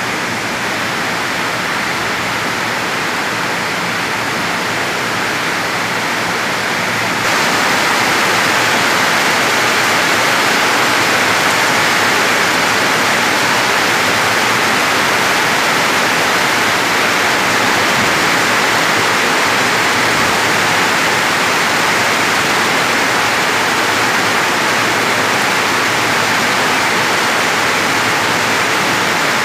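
Heavy rain falling as a steady hiss, stepping suddenly louder about seven seconds in.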